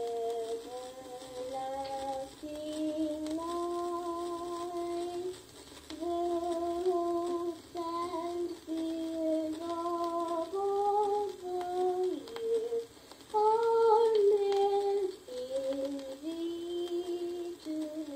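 A voice singing a slow tune in long held notes, played back from a 1956 home-recorded vinyl disc. It sounds thin, with no bass and a faint surface hiss.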